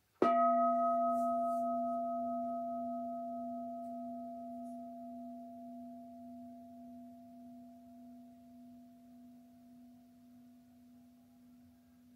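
A Buddhist bowl bell struck once, then ringing on with a strong low hum and a few higher overtones that slowly fade over many seconds, the highest tones dying out first. It marks the close of the mindfulness training recitation.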